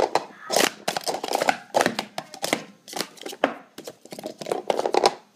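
Plastic sport-stacking cups clattering in quick succession as they are stacked up and brought back down on a mat, a rapid string of hollow clacks and taps several times a second.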